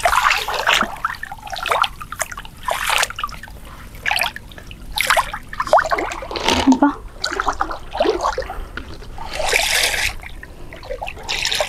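Shallow water splashing and trickling in irregular bursts as a person wades and works her hands and a plastic basin through it.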